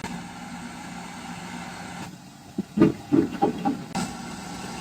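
Belt-driven electric rice mill running with a steady hum while glutinous rice is fed in for a test after its repair. About halfway through, a quick run of louder, irregular knocks and thuds breaks over the hum.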